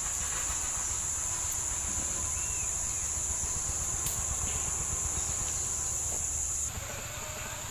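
Steady, high-pitched insect drone over a low rumble. Near the end the drone thins and drops in level.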